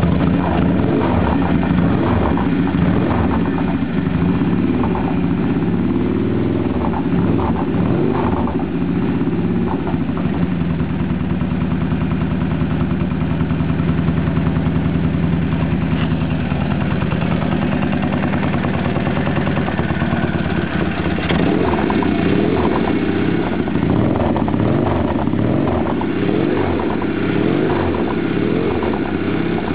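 Norton Commando parallel-twin motorcycle engine, freshly rebuilt, running steadily at idle.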